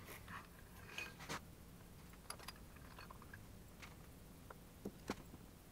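Faint, scattered clicks and light metallic knocks as a metal disc workpiece is shifted and nudged by hand on a milling machine table, being seated against its work stops.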